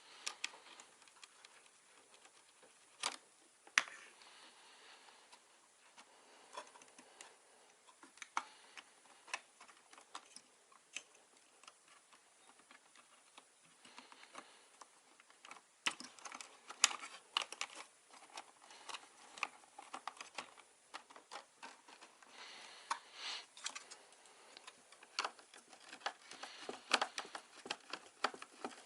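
Irregular light clicks and taps of hands working on small hard parts, such as computer components and a plywood case, coming more densely in the second half. There are a few soft breathing hisses between them.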